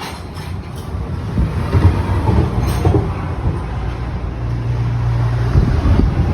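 Vehicle engine running with a low rumble, growing louder over the first couple of seconds and then holding steady.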